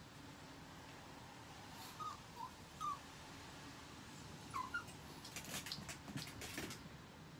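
Chihuahua whimpering: several short, high whines in two small clusters, followed by a quick run of light scratching and clicking as the dogs move about on the crate floor.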